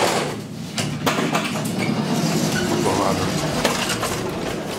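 1967 Flohr-Otis traction elevator car stopping and its doors opening: a sharp knock at the start, a couple of clicks about a second in, then the doors sliding open and letting in the noise of the station hall, with voices.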